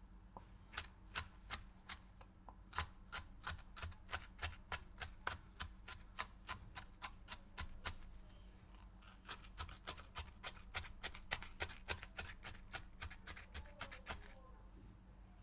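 Knife chopping a pepper on a cutting board: a steady run of sharp cuts, about three a second, a brief pause about halfway, then a second, slightly faster run of cuts.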